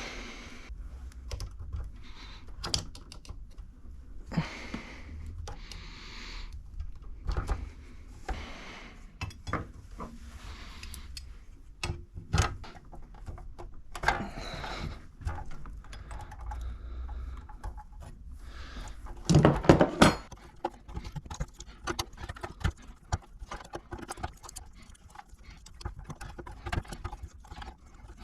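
Irregular clicks, clinks and rattles of hands working the plastic and metal parts inside an espresso machine while the old water pump is taken out, with a louder clatter a little before twenty seconds in.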